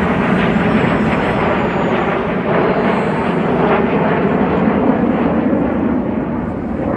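Red Arrows BAE Hawk jet trainers flying past with a loud, steady jet engine noise.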